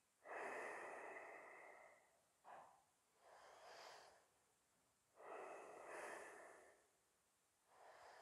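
Faint, slow breathing of a person holding a standing yoga pose: two long breaths about five seconds apart, with shorter, fainter breaths in between.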